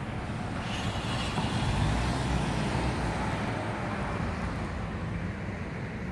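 Pickup truck driving past, its engine and tyre noise swelling to a peak about two seconds in and then easing off.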